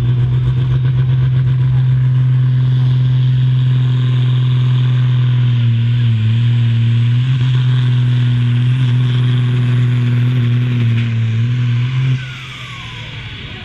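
John Deere pulling tractor's diesel engine running hard under full load with a steady drone, its speed sagging briefly a few times. About twelve seconds in it suddenly drops away as the throttle comes off at the end of the pull.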